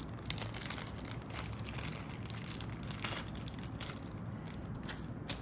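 Small clear plastic bag crinkling as it is opened and handled, with scattered light clicks and rustles as a chunky metal link bracelet is drawn out of it.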